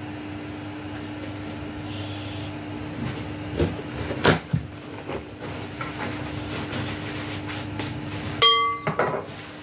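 Paper towel being pulled off and crumpled in the hands, with soft rustles and light knocks on the counter over a steady low hum. Near the end there is one sharp clink that rings briefly with several tones, like a hard object struck on glass or metal.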